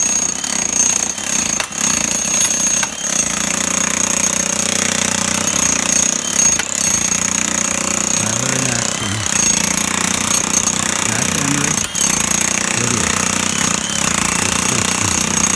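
Jackhammer hammering almost without a break while breaking up concrete, with a few momentary pauses.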